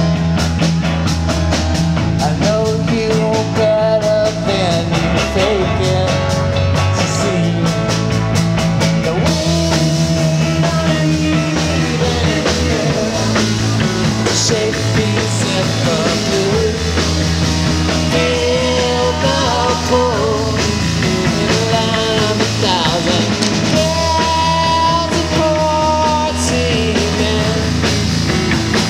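Live rock band playing a song with no singing in this stretch: electric guitar, acoustic guitar, Nord Stage keyboard and drum kit.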